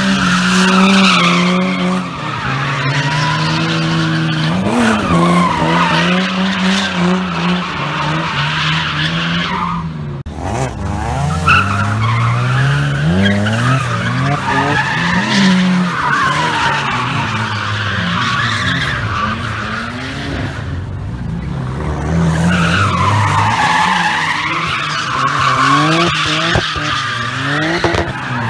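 Nissan 240SX drift car revving hard under wheelspin, the engine note climbing and dropping again and again while the rear tyres screech, with a short break about ten seconds in.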